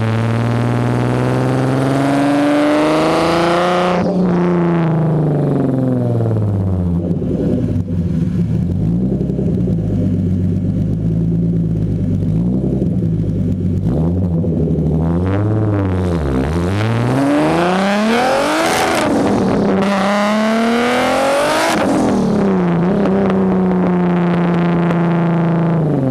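Exhaust of a turbocharged BMW E34 525 straight-six, heard right at the exhaust turn-down, revved up and down again and again; the highest revs come about three-quarters of the way through, and it settles back to a steady idle near the end.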